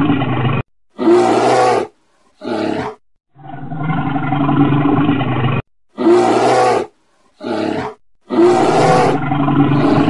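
Bear roars and growls in a repeating sequence: a long, rough growl, then two short, sharper roars, separated by sudden silent gaps. The pattern runs through twice and begins a third time near the end.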